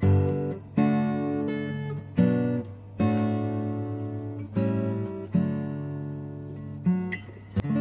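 Background music: acoustic guitar strumming chords, a new chord about every second.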